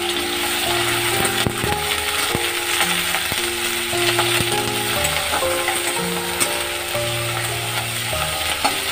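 Leaves frying in hot oil in a metal kadai, a steady sizzle, with a metal spatula scraping and clicking against the pan now and then as they are stirred. Background music with a simple melody plays over it.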